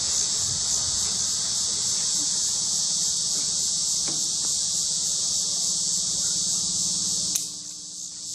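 Steady high-pitched hiss with a faint low hum underneath, and one sharp click near the end.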